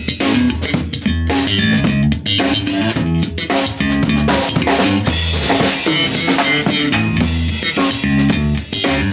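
Elegee Mini Datu electric bass played in a rhythmic groove along with a drum kit, its notes changing rapidly under steady drum hits.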